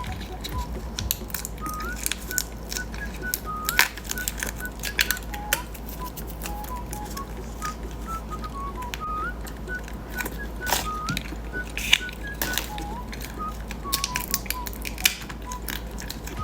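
A light background tune of short, high, whistle-like notes, over frequent sharp clicks and crackles from candy being unwrapped, handled and eaten.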